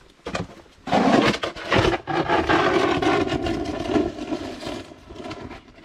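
Snow shovel pushed along a driveway through the snow, its blade scraping over the pavement in one long scrape that starts about a second in and fades near the end, after a few short knocks.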